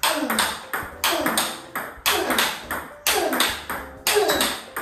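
Table tennis rally of forehand drives: the celluloid ball cracking off a bat faced with soft Tibhar Hybrid MK FX rubber and bouncing on the table, a sharp strike about once a second with lighter bounces between.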